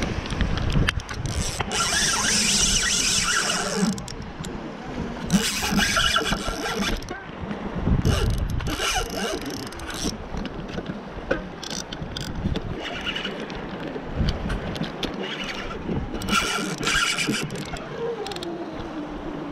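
Spinning reel sounding in about six bursts, each a second or two long, as a fish is fought on the rod, with wind rumbling on the microphone.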